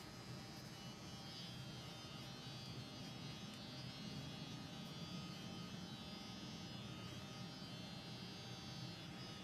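Electric hair clippers running with a steady buzz while cutting hair.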